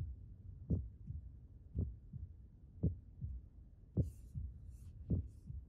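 Heartbeat sound effect: a slow, regular lub-dub double thump, five beats about a second apart, with faint hissing swishes over the last few beats.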